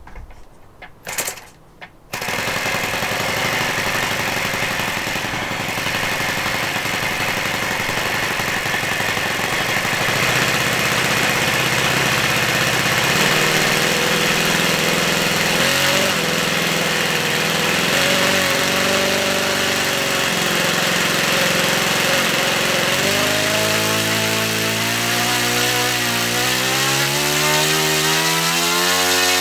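OS 52 four-stroke glow engine with an 11×5.5 propeller, hand-flipped and catching about two seconds in, then running steadily. From about three-quarters through, its pitch rises and falls as the throttle is opened and closed. The owner finds it a little slow to respond on the throttle.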